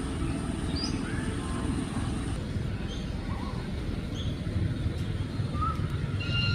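Short high bird chirps, several scattered calls, over a steady low rumble.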